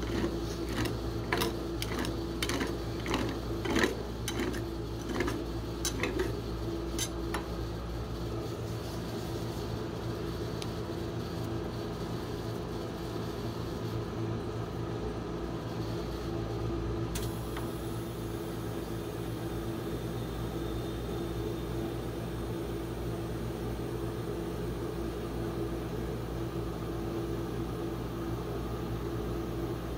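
Metal spatula tapping and scraping on the frozen steel plate of a rolled-ice-cream machine, about two strikes a second, slowing and stopping about seven seconds in. After that only the steady hum of the machine's cooling unit is left.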